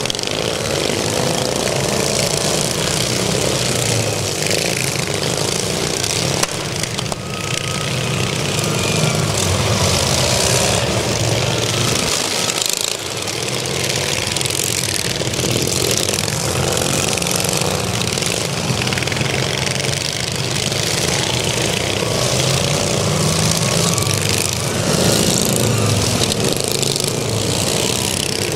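Several racing riding lawn mowers' small engines running hard together, their pitch rising and falling as they speed up, slow for the turns and pass by.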